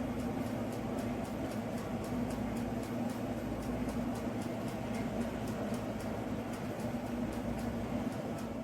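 Steady mechanical hum with a held low drone and an even hiss.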